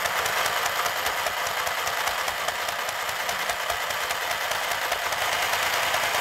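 Michley Double Stitch mini sewing machine running continuously on its run button, its small motor and needle making a steady, fast rattle as it stitches a seam through white fabric.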